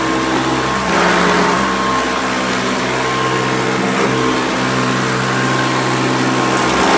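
Hoover Custom Convertible upright vacuum cleaner running: a loud, steady motor hum with a thin whine above it.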